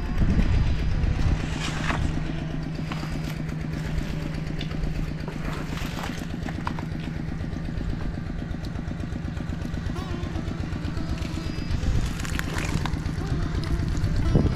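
A small engine running at a steady speed, with scattered knocks and clatter over it.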